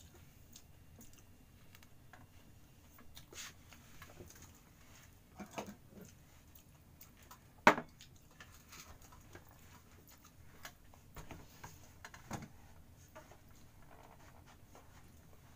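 Scattered small knocks, clicks and rustles of dishes and things being handled on a dining table, with one sharp, loud knock about halfway through and a few more knocks later.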